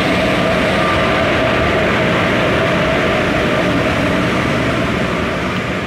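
Indian Railways WAG-7 and WAG-9 electric freight locomotives passing close by, a loud, steady hum and whine from their motors and blowers over the rumble of wheels on rails.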